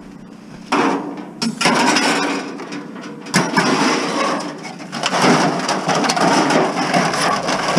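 Scrap sheet metal clattering and scraping as heavy pieces are handled and loaded, starting suddenly about a second in and going on as an irregular run of metallic crashes and rattles.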